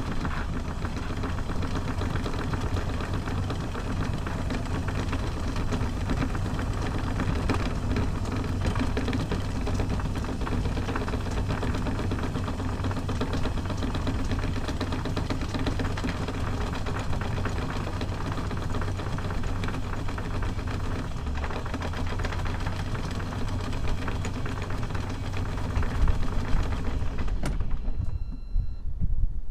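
A sailing yacht's inboard diesel engine idling with a steady low chug. A few low thumps come in near the end.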